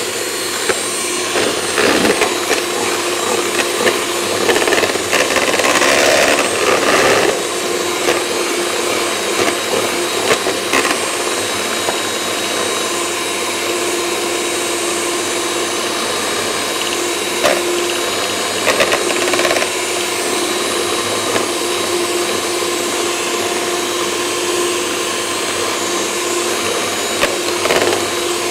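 Electric hand mixer running steadily, its twin beaters whisking egg whites and caster sugar toward a meringue, with a constant motor hum and several short knocks along the way.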